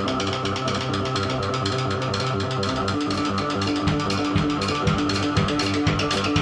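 Live noise music from a Casio keyboard and a drum kit: held keyboard tones over rapid, dense drumming. A new keyboard note comes in about three seconds in, and heavy low drum hits start soon after.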